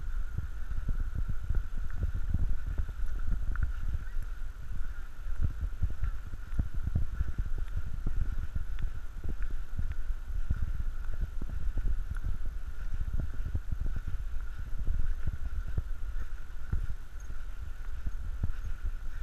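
Footsteps and handling noise from walking with the camera along a dirt trail: irregular low thumps and rumble, with a steady faint high hum underneath.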